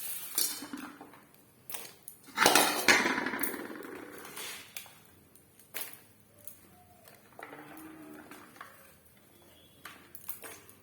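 Chopped raw papaya tipped into boiling water in a kadai: scattered clinks and knocks of pieces and a utensil against the pan, with the loudest burst of clatter and water noise about two and a half seconds in.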